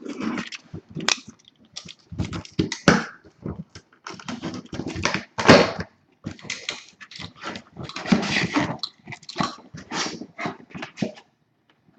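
A cardboard shipping case being opened by hand, with irregular tearing, crinkling and rustling of cardboard, tape and packing peanuts.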